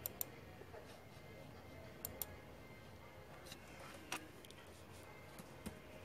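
A few faint, scattered clicks over quiet room tone: one just after the start, two close together about two seconds in, and a sharper one about four seconds in.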